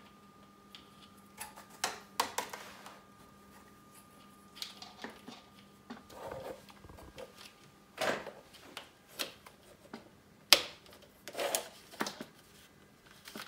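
Plastic cable-duct cover plate being handled and pressed onto a wall-mounted cable channel, with cables pushed in beside it: scattered clicks, taps and light rubbing, the sharpest click about ten and a half seconds in.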